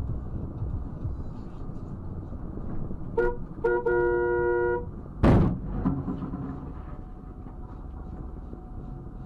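Car horn honked in two short toots and then a held blast of about a second, over the steady road noise of a car driving in traffic. Just after the horn comes a loud, sudden thump.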